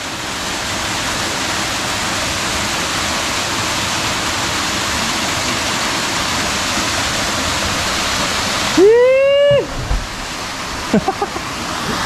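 Steady rush of falling water from a waterfall. About nine seconds in, a person gives one loud, short shout that rises and then holds, and a few brief voice sounds follow near the end.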